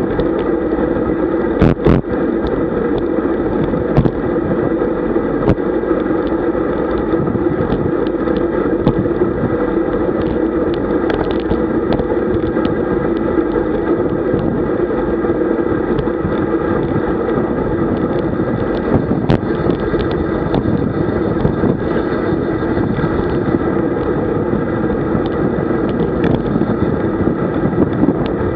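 Rushing wind over the microphone of a bike-mounted camera, mixed with tyre and road rumble from a road bike descending at about 45–50 km/h. It holds as a steady loud noise, with a few sharp clicks.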